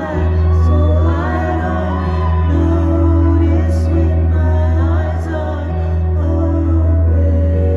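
Live band music with a woman singing into a microphone over a sustained deep bass line.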